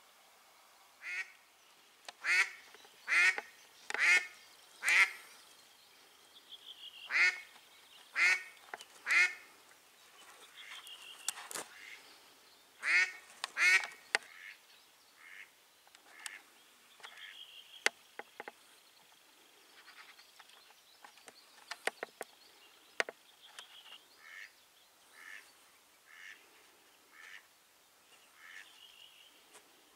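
Hen duck quacking in series: five loud quacks about a second apart, then three more, a pair, and softer quacks near the end. It is the live decoy hen's calling, used to draw drakes in spring.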